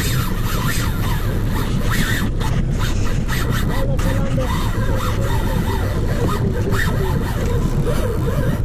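Small fishing boat's motor running steadily while trolling.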